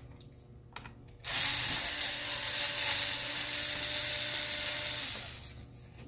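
Small cordless electric screwdriver running, backing a screw out of a laptop's bottom case: a steady motor-and-gear whirr that starts a little over a second in, lasts about four seconds and winds down near the end.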